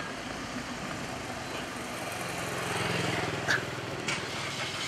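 A vehicle engine passing close on a street, its low rumble swelling to its loudest about three seconds in, over steady traffic noise. A short sharp click comes just after the peak.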